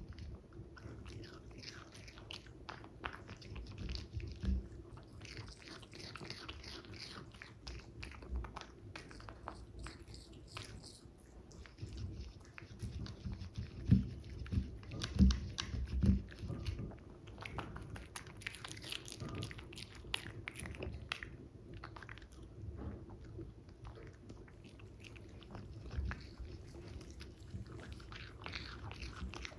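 Toy poodle eating a dog cake out of a plastic cup: irregular biting and chewing sounds, with a few louder sharp clicks about halfway through.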